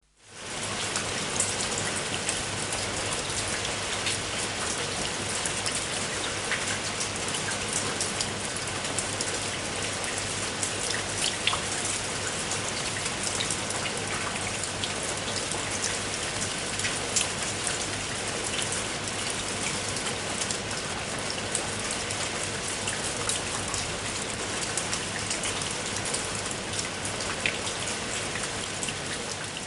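Steady rain falling, an even hiss full of small drop ticks, fading in over the first half second.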